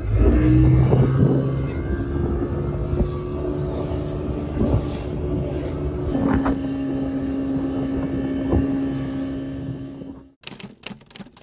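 Motorboat engine running at speed under passenger load, with water rushing past the hull; its note drops slightly about six seconds in. It cuts off abruptly near the end, giving way to a crackling noise.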